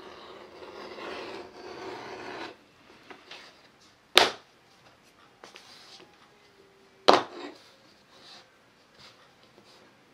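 Leather edge beveler stropped along the rouge-coated edge of a scrap of veg-tan leather, a scratchy rubbing for about two and a half seconds. Then two sharp knocks, about three seconds apart.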